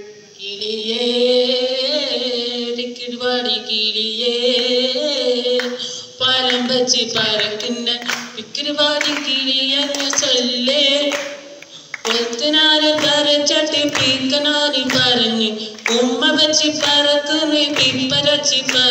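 A man singing unaccompanied into a microphone over a PA. He opens with long held notes with vibrato, then from about six seconds in moves into a rhythmic song with hand claps keeping the beat.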